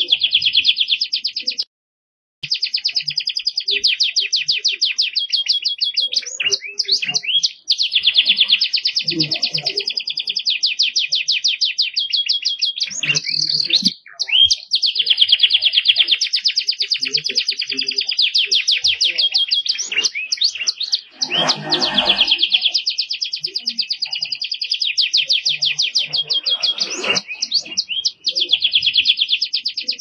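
Domestic canary singing a long, continuous song of very fast, high-pitched rolling trills, broken by short pauses every several seconds.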